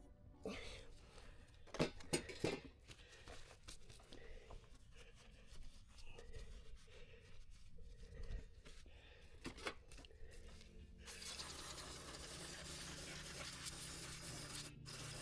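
Scattered clicks and knocks of hand work, then from about eleven seconds in a steady low hum with hiss.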